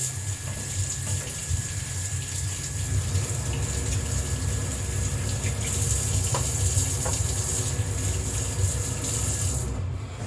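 Kitchen tap running steadily into a sink, a continuous hiss of flowing water that cuts off near the end.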